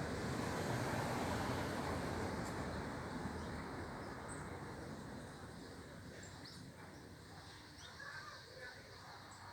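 A passing vehicle's rushing noise fades away over several seconds. A few short, high bird chirps sound over it.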